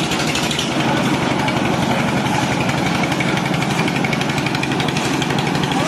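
Portable drum concrete mixer running steadily, its engine keeping up a fast, even beat as the drum turns.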